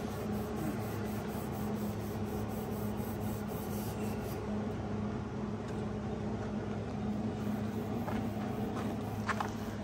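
Steady low mechanical hum of shop machinery, with a few faint rubs of a cloth rag on a metal exhaust tip near the end.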